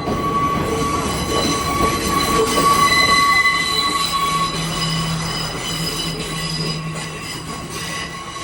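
A passing train's steel wheels squealing on the rails, a steady high-pitched squeal over the rumble of the carriages. A low steady drone joins about halfway through, and the sound is loudest about three seconds in, then slowly fades.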